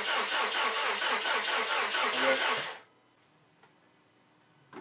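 Starter motor cranking the freshly rebuilt 2013 Subaru STI's EJ257 turbo flat-four with a steady rhythmic beat, without firing because the crank sensor is unplugged and the fuel pump fuse is out: a dry crank to prime the oil system. The cranking stops about three seconds in.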